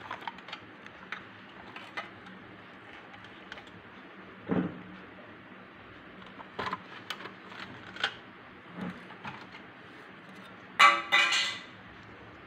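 Scattered clicks, taps and light knocks of a handmade toy harvester model and its parts being handled and set down, with a louder short pitched squeak-like sound about eleven seconds in.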